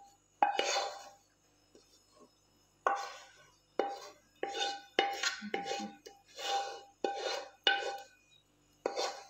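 Wooden spatula scraping thick custard out of a black wok-style pan, in about ten short strokes, each starting sharply and fading quickly.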